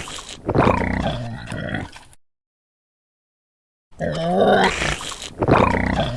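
A layered cartoon eating sound effect, built from a pig chewing and grunting, a wet tongue-stretching sound and gulping swallows. It runs about two seconds, stops for nearly two seconds, then plays again the same way.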